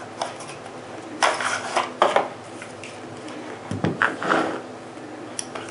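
Cardboard ammunition box being opened by hand and its black plastic tray of brass rifle cartridges slid out: scraping and light clattering in two short spells, then a click near the end.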